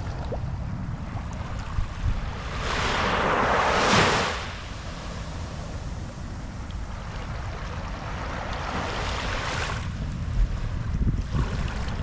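Small, gentle waves washing up onto a sandy beach and drawing back, with two swashes: a louder one swelling and breaking off about four seconds in and a softer one near the end. A low steady rumble runs underneath.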